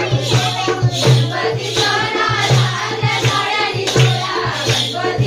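Group of women singing a Konkani zakhadi folk dance song to steady hand clapping, about two claps a second.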